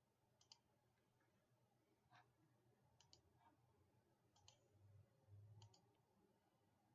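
Near silence with a few faint clicks of a computer mouse, several in quick double pairs, spread a second or so apart.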